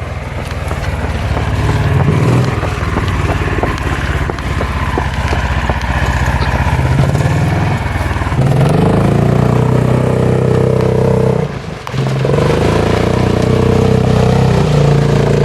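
Golf cart's small engine running at full throttle as it is driven hard, its pitch climbing about halfway through. It lets off for a moment near the end, then pulls high again.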